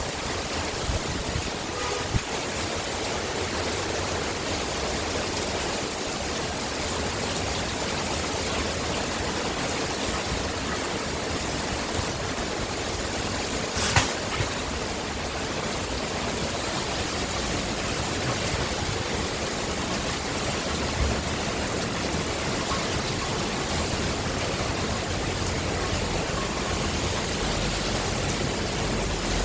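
Heavy rain pouring down steadily, a dense, even hiss, with one sharp click about fourteen seconds in.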